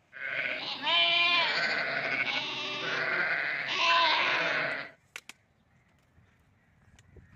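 Livestock bleating: several loud, wavering calls over about five seconds that cut off abruptly, followed by two sharp clicks.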